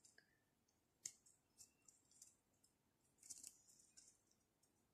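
Near silence, broken by a few faint, high clicks and rubs from a crochet hook working macramé cord. The clearest comes about a second in, and a small cluster follows past the three-second mark.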